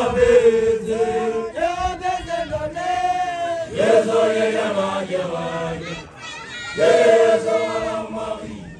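Voices chanting together in long, drawn-out phrases of a few held notes each, about four phrases with short breaks between them, typical of the songs of Basotho initiates.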